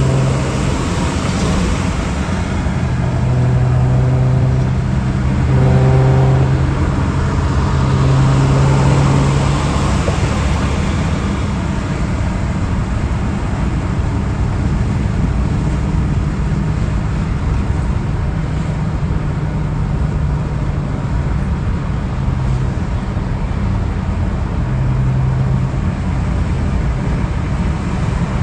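A car at road speed heard from inside the cabin: the engine running steadily under a constant rush of tyre and wind noise, swelling louder a few times in the first ten seconds.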